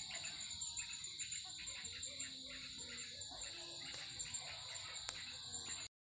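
Steady, high-pitched insect chorus trilling without pause, cut off suddenly near the end.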